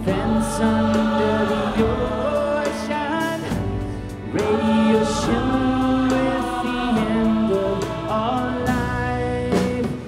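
Mixed choir singing sustained chords with an orchestra and rock band: strings, electric guitars, keyboard and drum kit.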